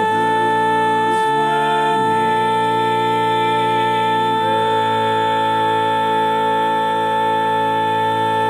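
Male barbershop quartet singing a cappella in four-part harmony on the tag's final word. The tenor holds a high post note while the lower voices shift through a few chord changes in the first half, then all four hold the closing chord.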